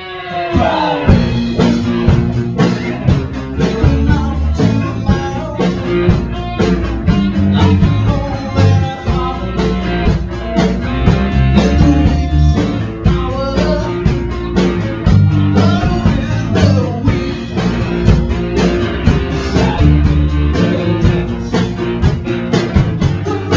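Band music with guitar, bass and drums on a steady beat, and a singing voice.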